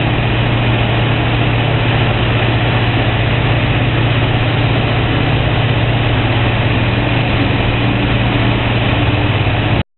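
Diesel engine of a Caterpillar 330C hydraulic excavator running steadily under work, a loud, even low drone. It cuts off abruptly just before the end.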